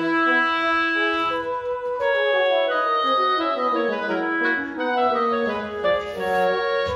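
Instrumental background music: a melody of held notes over chords.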